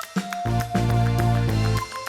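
Music with a drum beat, held bass notes and a sustained melody line.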